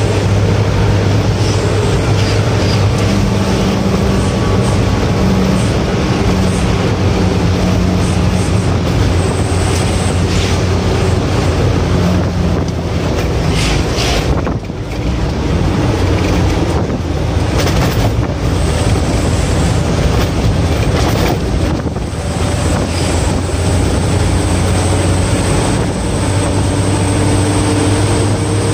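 A cargo truck's diesel engine running steadily at speed, heard from inside the cab over road and wind noise. The sound dips briefly twice, about halfway through and again about three-quarters of the way through.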